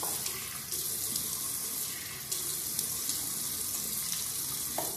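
Tap water running steadily into a sink while a face is rinsed with the hands; the water shuts off at the very end.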